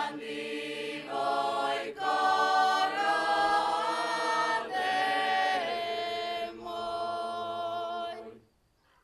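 Mixed group of women's and men's voices singing a Slavonian folk song a cappella in harmony. The chords are held long, in three phrases. The singing stops shortly before the end.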